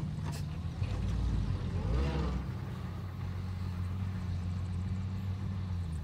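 Loaded dump truck's diesel engine running at low revs as the truck reverses slowly, a steady low rumble throughout.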